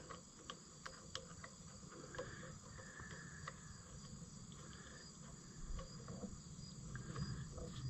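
Faint light clicks and taps of small parts being handled during hand work on a tractor, over a steady faint high-pitched background.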